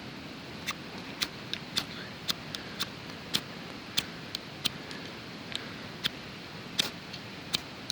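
Small firestarter rod on a budget folding multitool being struck over and over with its little striker: about fifteen short, sharp scrapes, irregularly spaced at roughly two a second.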